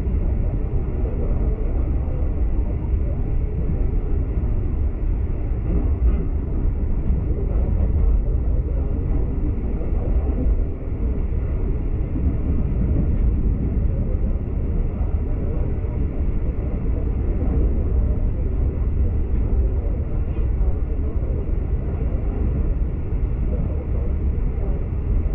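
Steady low rumble of a V/Line passenger train running along the line, heard from inside the carriage: wheel and running noise with no distinct knocks or horn.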